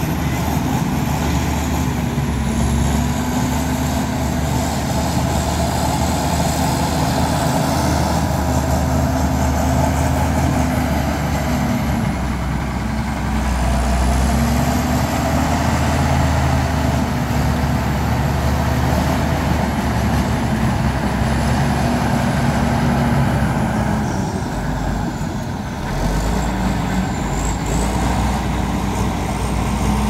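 Diesel engine of heavy construction machinery running under load, its revs rising and falling every few seconds, with a faint high whine drifting above it.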